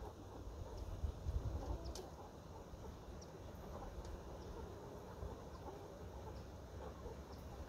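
Chickens clucking quietly, with a low rumble underneath.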